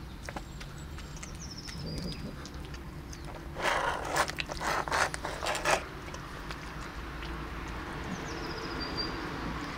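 Plastic food tray scraping and shuffling on asphalt in a loud, scratchy burst of about two seconds near the middle. A small bird chirps a quick falling run of notes near the start and again near the end.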